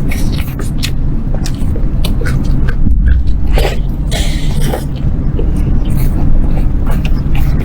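Close-miked eating: biting and chewing food, heard as a string of short wet clicks and crunches, over a steady low rumble.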